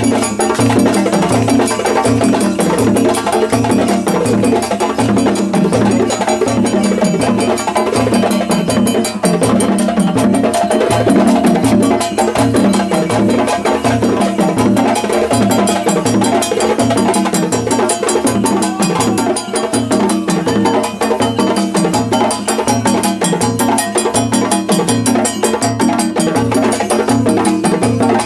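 West African percussion ensemble playing a steady, repeating rhythm: dunun bass drums struck with sticks, with bells struck along with them.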